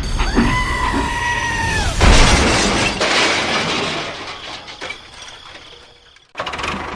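A steady whistling tone lasting about two seconds, dipping slightly as it ends, then a sudden loud crash with a clattering rattle that dies away over about four seconds. Near the end it cuts abruptly to a small engine running steadily.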